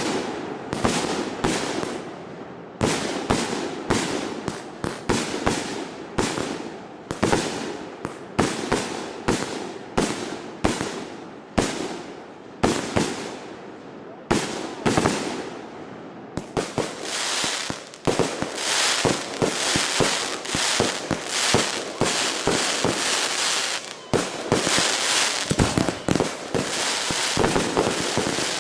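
Consumer firework cake firing: a steady run of sharp bangs, more than one a second, each trailing off in an echo. About halfway through it turns into a dense, continuous crackle of many small bangs.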